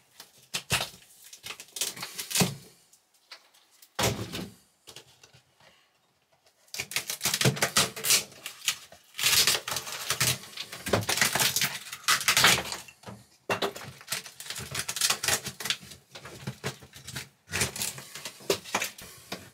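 Thin, delaminating plywood ceiling paneling and trim around an RV skylight being pulled and broken away by hand: irregular cracking, snapping and crinkling, with small pieces breaking off. The wood is water-damaged from a leaking roof. The sounds come in a few short bursts at first, then dense from about a third of the way in.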